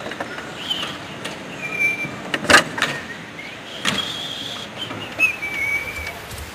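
Clicks and clunks of a Volkswagen Beetle's door handle and lock being worked, with two sharp knocks about two and a half and four seconds in. Short high squeaky tones sound between them.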